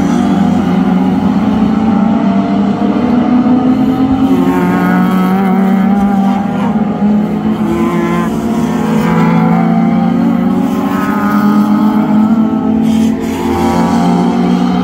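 Several classic touring race cars running together out of a corner under hard acceleration. Their engines drone underneath, and several times a car rises in pitch as it pulls away through the gears. Near the end a Nissan Primera touring car passes close by.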